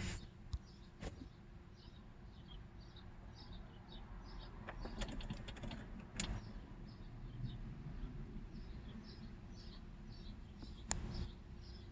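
Faint, short high chirps of a small bird repeating about twice a second, over a low steady hum, with a few sharp clicks.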